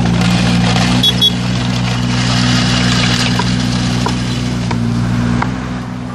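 Diesel engine of an IHI mini excavator running steadily while its hydraulic kerb-stone grab is swung, with a brief high squeak about a second in. The engine eases off slightly near the end.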